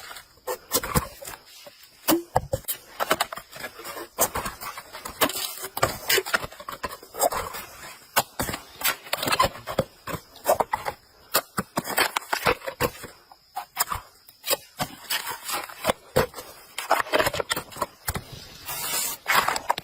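Fresh vegetables being picked and handled by hand: a run of irregular crisp snaps, cracks and rustles of stems and leaves.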